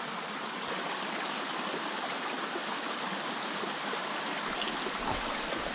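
Small mountain stream running steadily over rocks, a continuous rushing of water with no other clear sound.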